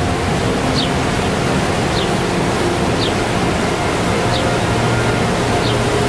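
Niagara River rapids rushing: a loud, steady wash of white water, with a short high chirp repeating about every second over it.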